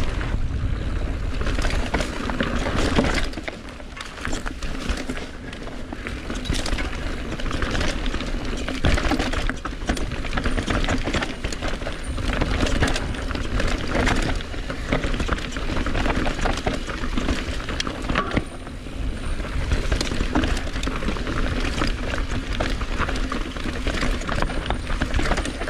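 Mountain bike descending a rough trail: the tyres run over rocks and roots while the chain and frame clatter in a dense, uneven run of knocks. Wind rumbles on the camera microphone, heaviest in the first few seconds.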